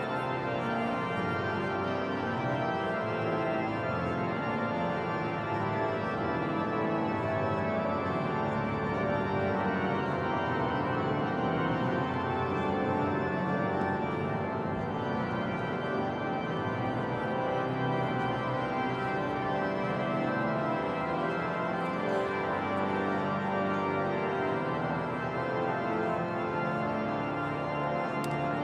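Cathedral pipe organ playing sustained chords of many notes at a steady level.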